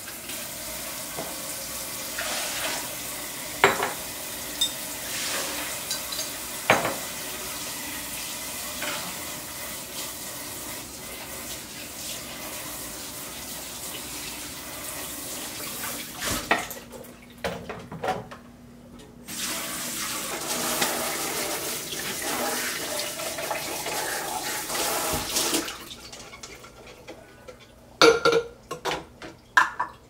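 Kitchen tap running into a sink during washing-up, with occasional clinks of dishes. The water stops for a few seconds about halfway through and again near the end, where glassware clinks several times against dishes in a plastic dish rack.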